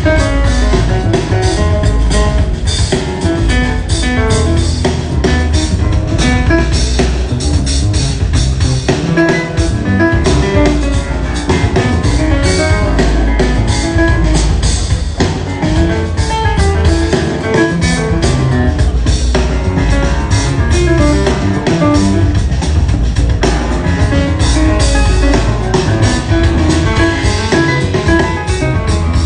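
An instrumental jazz trio playing, with a drum kit keeping a busy beat under a strong bass line and melodic instrument notes.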